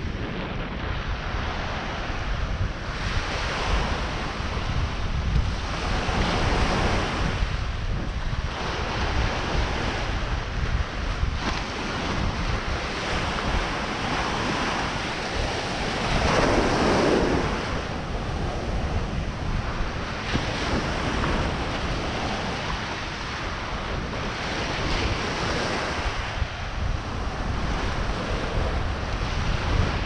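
Ocean surf washing on the beach in slow swells, with wind rumbling on the microphone.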